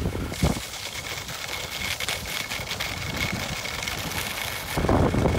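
Skis scraping and chattering over snow on a downhill run, with wind rushing over the microphone that grows into a louder low rumble near the end.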